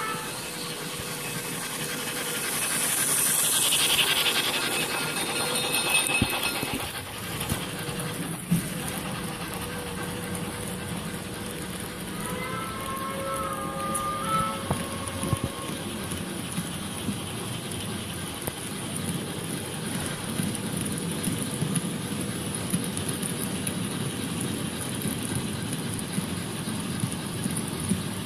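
Märklin H0 model steam locomotives' sound effects and the rolling rattle of a long train of model freight wagons passing on metal track. There is a burst of steam hiss a few seconds in and a multi-tone steam whistle about halfway.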